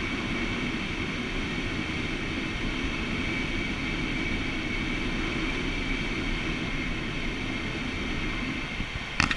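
Steady rush of airflow in a glider's cockpit in flight, with a faint steady high tone over it. A sharp click near the end.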